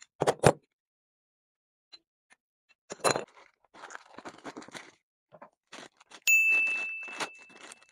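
Workbench handling noises: a couple of sharp knocks as metal grinder parts and a bearing puller are put down, a clatter about three seconds in, then crinkling of a plastic bag and cardboard box as a new armature is unpacked. About six seconds in, a bell-like ding rings out and fades over a second and a half: the sound effect of an on-screen subscribe button.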